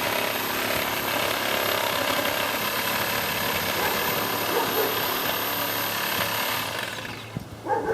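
Power saw running as it cuts into a tree trunk, a steady motor noise with a high whine, cutting off about seven seconds in.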